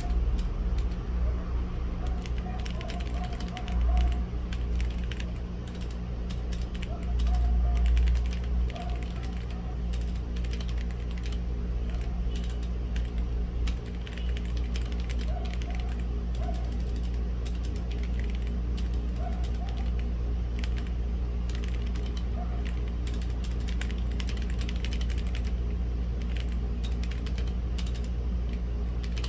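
Typing on a mechanical keyboard with red linear switches (Womier/Gamakay K87), irregular key clacks throughout, over a steady low background rumble.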